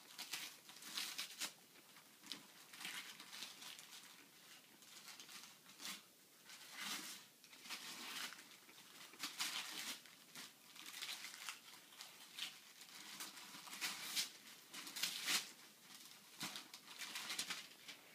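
Wrapping paper being torn and crumpled by hand as a gift is unwrapped, in irregular rips and rustles.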